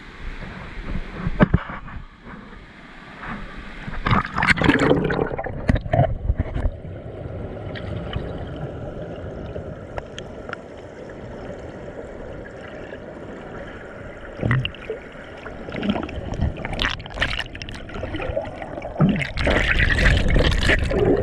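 Mountain stream water running and gurgling, swollen after heavy rain, with louder bursts of water noise about four seconds in and again near the end.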